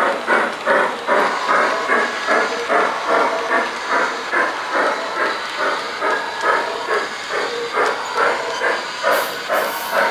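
Steam-locomotive chuffing from a G-scale Bachmann 4-6-0 model train running at speed: a steady, even beat of about two chuffs a second with a hiss under it.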